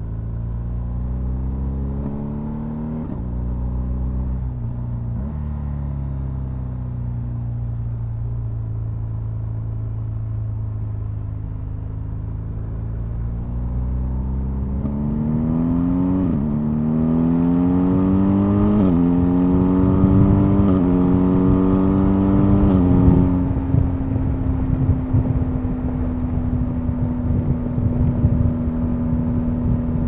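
BMW R 1250 GS Adventure's boxer-twin engine, heard dull through a backpack: running steadily at first, then accelerating hard through about four upshifts, each a rising pitch that drops at the shift. From about two-thirds of the way through it holds a steady drone at motorway speed under heavy wind noise.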